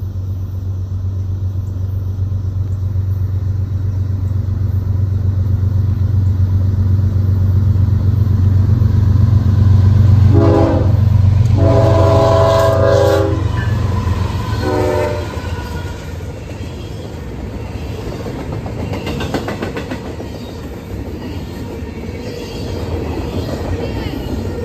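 Norfolk Southern intermodal train passing: the diesel locomotives' low engine drone builds as they approach, and about ten seconds in the locomotive air horn sounds three blasts, the middle one longest. After that comes the steady rumble and clatter of double-stack container cars rolling by on the rails.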